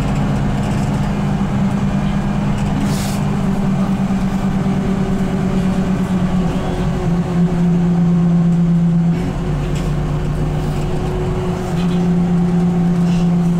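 VDL Citea LLE-120 city bus with a Voith automatic gearbox, heard from inside the passenger cabin while driving: a steady engine and drivetrain hum over road noise. Its pitch steps down and back up a few times through the second half.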